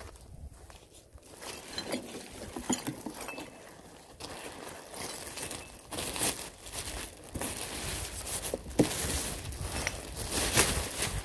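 A thin green plastic rubbish bag rustling and crinkling as a plastic bottle is pushed into it, loudest in the second half in several bursts. Before that, footsteps and light crackling on the dry leaves and twigs of the forest floor.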